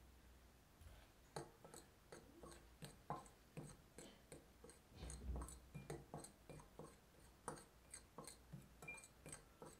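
A metal fork stirring dry flour, sugar and salt in a glass mixing bowl: light, irregular clinks of the tines against the glass, two or three a second, with soft scraping through the powder, starting about a second in.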